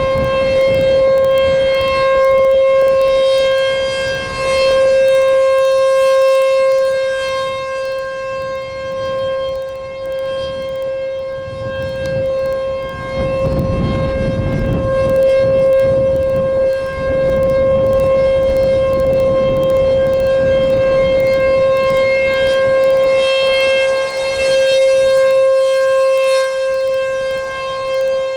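American Signal Corporation Tempest T-128 outdoor warning siren sounding its steady alert tone at full speed. It holds one pitch with strong overtones, and its loudness swells and fades as the rotating horn sweeps around. It is loud, heard up close.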